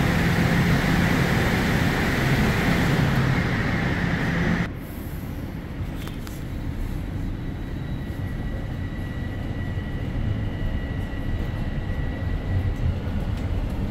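Interior noise of a Toronto subway train, a TTC Toronto Rocket car: a steady running rumble with a low hum and a whine. About five seconds in it drops suddenly to a quieter rumble with a faint high whine.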